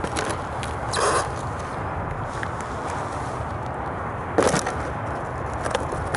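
Sneaker soles crunching and scuffing on loose gravel, with a rasping scrape about a second in and a louder crunch a little past four seconds, over a steady low wind rumble on the microphone.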